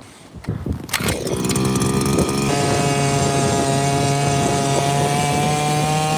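Power ice auger starting up about a second in and running steadily, its motor holding one even pitch.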